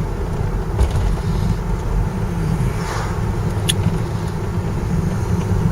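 Steady low rumble of a pickup truck's engine and tyres on the road, heard from inside the cab while driving, with one brief faint tick about two-thirds of the way in.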